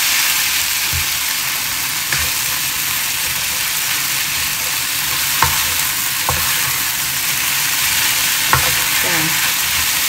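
Lot noodles with beef and bean sprouts sizzling in a nonstick frying pan while a spatula stirs and tosses them, with a few sharp knocks of the spatula against the pan.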